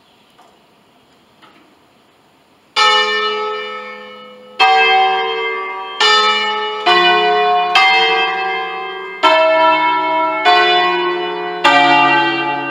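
A five-bell peal in D of swinging church bells, cast by Pruneri in 1953 and rung electrically, gets going. After a quiet start with two faint clicks, the first stroke comes about three seconds in. Strokes of different bells, at different pitches, then follow roughly every second or so, each ringing on and fading as the next strikes.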